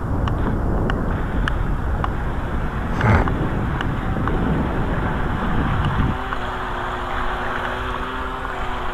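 Rumbling handling noise on a camera inside a plastic waterproof housing mounted on a toy RC boat, with small clicks and one louder knock about three seconds in. A steady low hum begins about six seconds in.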